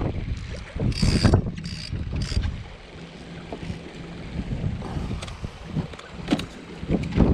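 Wind buffeting the microphone in gusts, strongest near the start and the end. Two short rustling bursts come about a second in, and a few sharp clicks follow later, the sound of handling in a kayak.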